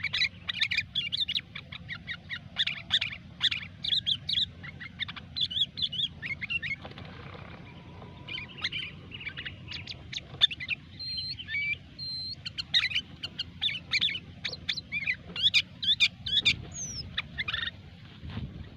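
Sooty-headed bulbul chattering continuously: rapid strings of bright whistled chirps and short trills, with a brief lull about seven seconds in. A low steady hum sits underneath.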